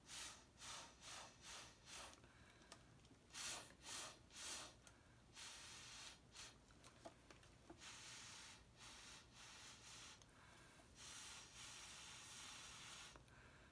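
Breath blown through a drinking straw onto wet acrylic pour paint, a series of soft hissing puffs. Several short quick puffs come first, then a few stronger ones, then longer blows lasting a second or more.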